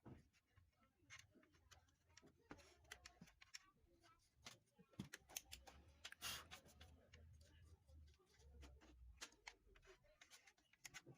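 Near silence with faint, irregular clicks and light knocks of small parts being handled.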